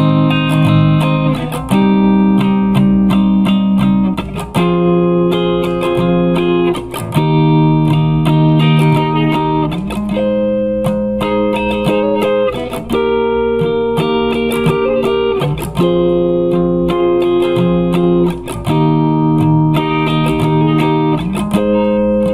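Instrumental guitar music: chords plucked and strummed, changing every second or so with a steady pulse.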